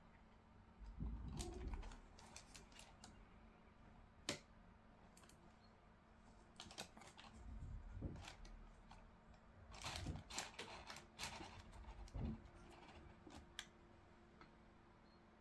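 Faint handling sounds of a basketball shoe being held and turned in the hand: scattered light clicks and taps with a few soft low bumps, busiest about ten seconds in.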